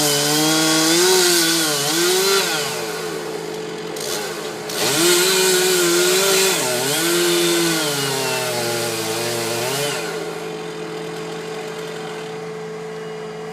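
Chainsaw running at high revs, its pitch dipping and recovering again and again as it bogs under load in the cut. About ten seconds in, the revving stops and a steady engine hum is left, fading away.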